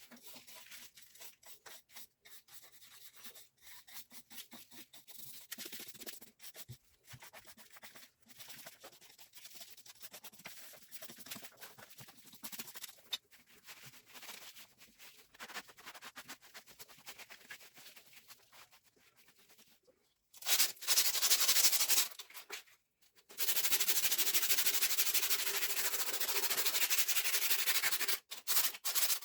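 Abrasive rubbing and scraping strokes in an uneven rhythm, as in cleaning or sanding metal lathe parts. About twenty seconds in, a much louder steady scouring noise starts, breaks off briefly, and resumes.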